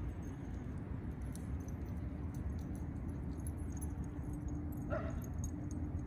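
Dogs at play, with a short rising dog whine about five seconds in, over faint jingling and a steady low rumble.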